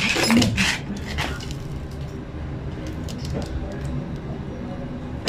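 Smartphone parts being handled on a wooden table: a few clicks and rustles of plastic and glass parts in the first second, then faint scattered taps over a steady low hum.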